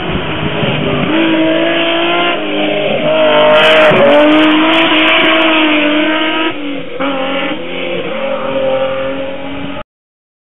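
Rally car's engine revving hard through a hairpin on a hillclimb stage. The revs rise and fall as the driver lifts and changes gear, with a deep dip about three seconds in and another near seven seconds. The sound cuts off abruptly just before the end.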